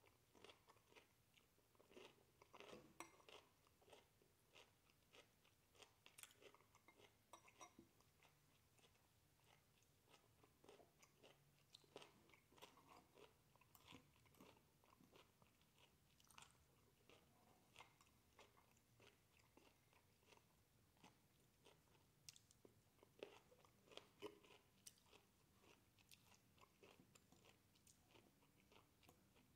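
Faint, close chewing of cooked broccoli: an irregular run of small crunches and clicks.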